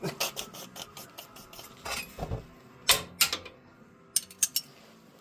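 Scattered metallic clicks and clinks from hand tools and parts being handled during an oil change, with a quick run of clicks at the start.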